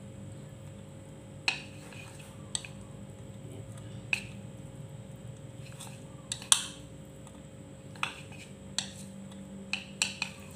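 Chopsticks clicking against a bowl as cooked instant fried noodles are tossed and mixed: about ten sharp, separate clicks at irregular intervals.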